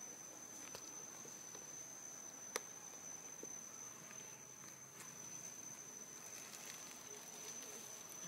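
Faint steady high-pitched drone of insects, with one sharp click about two and a half seconds in.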